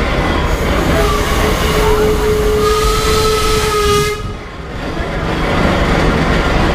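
Steam traction engine's whistle blowing one long note of about three seconds, with a hiss of steam as it peaks, then cutting off sharply. A steady low rumble of the moving engine and its trailer runs underneath.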